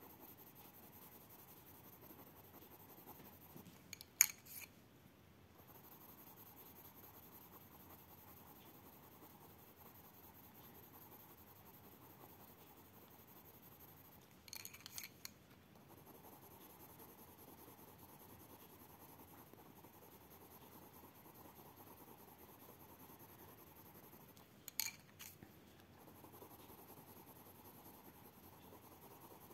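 Faint scratching of a coloured pencil shading on paper, with three short bursts of sharper clicks spaced about ten seconds apart.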